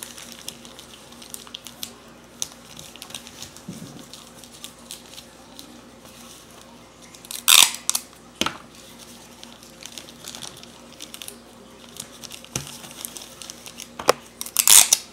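Gift wrapping paper crinkling and rustling as it is folded around a candy bar, with two louder short tearing sounds, one about halfway through and one near the end.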